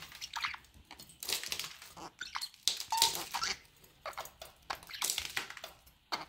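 Budgerigar chattering softly: a busy run of short high chirps, squeaks and clicks.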